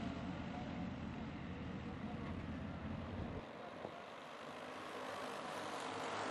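A pack of racing go-kart engines buzzing as the karts circle the track, a steady drone of many small engines that swells again near the end. A low rumble under it cuts off abruptly about three and a half seconds in.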